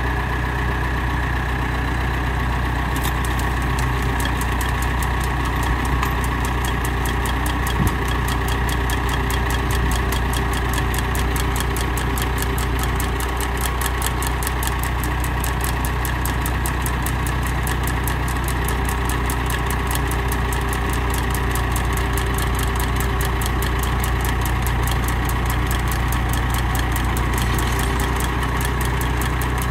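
Tractor engine running steadily under the load of a PTO-driven post-hole auger boring into the soil. A fast, even clicking joins the engine about three seconds in.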